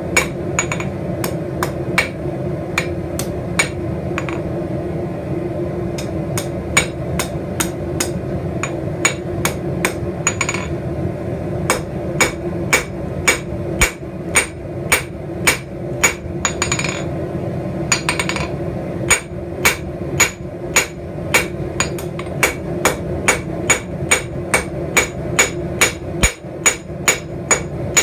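Blacksmith's hammer striking steel on an anvil in forging, sharp ringing blows at about two a second, with a few short pauses, over a steady hum.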